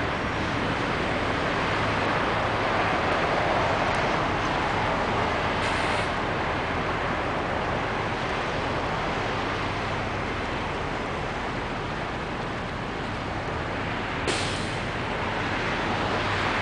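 Steady road traffic, cars passing on a busy road, with two short high hisses, one about six seconds in and one near the end.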